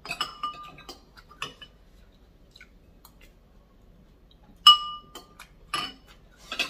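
Metal cutlery clinking against a bowl of bakso (meatball soup): about six separate ringing clinks with gaps between them, the loudest about two-thirds of the way through.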